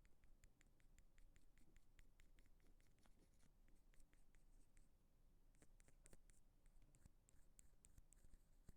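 Faint ASMR ear cleaning on an earphone-style microphone: an ear pick scraping and clicking against it, many quick small scratches a second.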